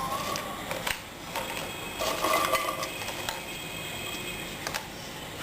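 A few sharp, light clinks and clicks of dishes being handled, spread out over several seconds.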